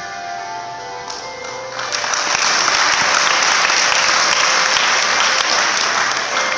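Audience clapping over background music: the applause starts about two seconds in, stays loud, and fades near the end while the music's held tones carry on underneath.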